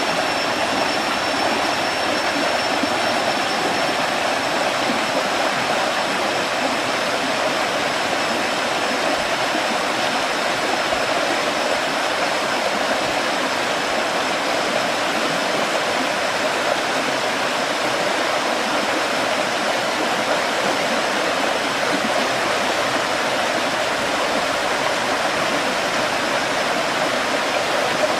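Waterfall on Kulen Mountain: water falling and rushing steadily.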